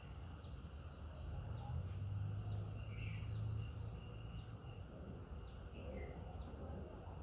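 Outdoor ambience: small birds chirping with short, high, repeated notes and quick downward-sliding calls, over a steady low hum that swells for a couple of seconds near the start.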